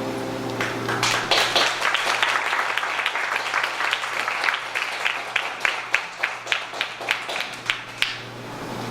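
Audience applause as the last notes of the music die away: the clapping starts about half a second in and thins out to a few scattered single claps near the end.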